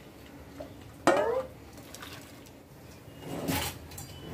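A metal pot knocking and scraping against the rim of a larger aluminium pot about a second in, with a brief bending ring, as soaked rice is tipped into boiling water; a short splashing rush follows about two seconds later.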